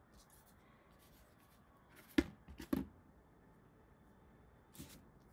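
Quiet room tone with a few short knocks: two sharp ones about half a second apart a little over two seconds in, and a softer one near the end, from things being handled on a tabletop.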